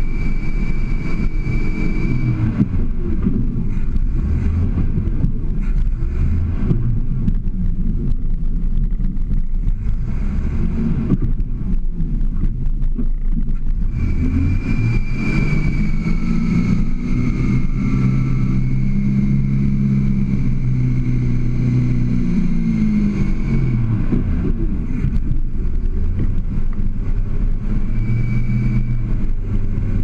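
Toyota Land Cruiser FJ40 engine working under load while rock crawling, the revs rising and falling repeatedly with the longest, strongest push in the middle; a high thin whine comes and goes along with the revs.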